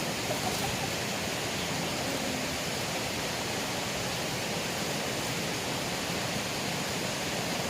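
Steady rush of flowing water in a small river, an even hiss with no breaks.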